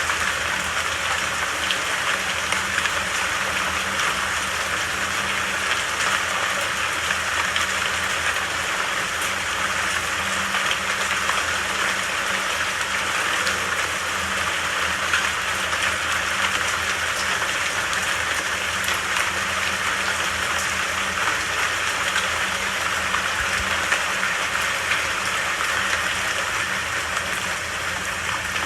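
Steady, even rainfall: a dense patter of raindrops with no thunder and no change in intensity.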